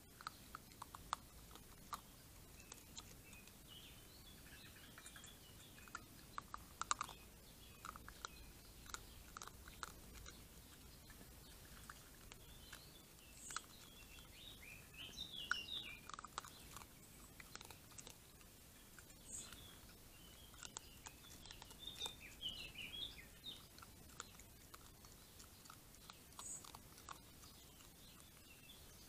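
Raccoon chewing dry kibble: irregular crisp crunches and clicks come in scattered bunches.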